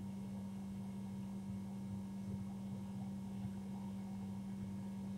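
Steady low electrical hum, one even tone with a lower rumble beneath, over faint room noise.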